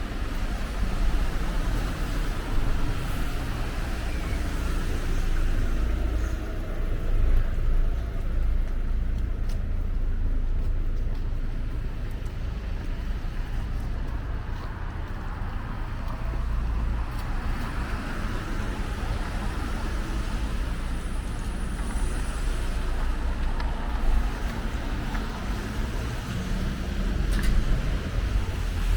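Street traffic: cars passing on a city road, a steady noisy wash that swells as vehicles go by, over a constant low rumble.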